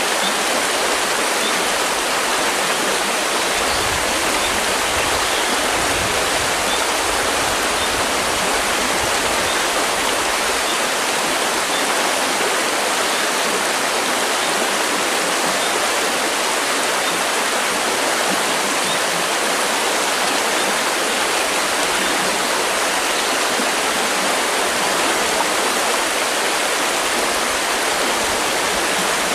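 River water flowing steadily with a constant, even rushing.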